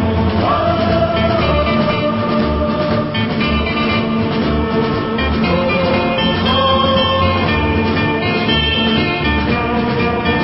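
Background music with a steady bass line and a melody.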